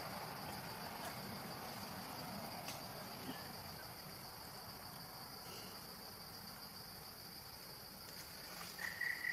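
Insects calling: a steady, high-pitched drone, with a second, lower steady tone joining near the end.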